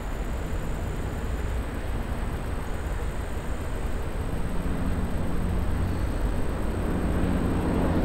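A low engine drone that grows a little louder in the second half, over a steady low rumbling noise.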